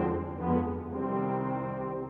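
A Salvation Army brass band playing sustained low brass chords, swelling about half a second in.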